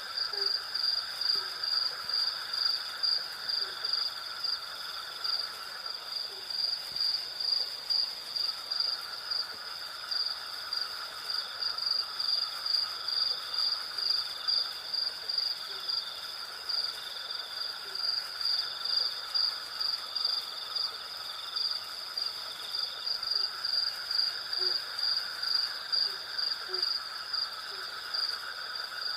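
Night insect chorus of crickets and cicadas: one high chirping pulses evenly about twice a second over a steadier high trill, with a lower buzzing band that fades out for a few seconds and returns. Faint short low notes sound now and then underneath.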